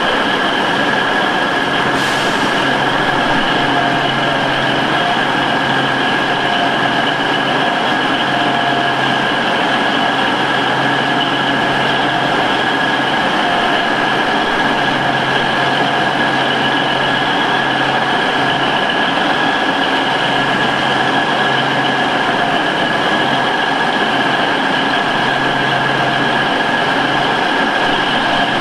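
Class 153 diesel multiple unit standing at the platform with its engine idling: a steady hum with a constant high-pitched whine over it.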